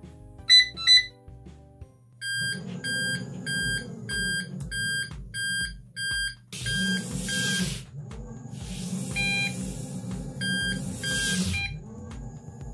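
Hoverboard motor-controller board's buzzer beeping: two loud beeps about half a second in, then a steady run of beeps about twice a second. These are the board's reverse-mode warning beeps. Two stretches of hiss come up in the middle.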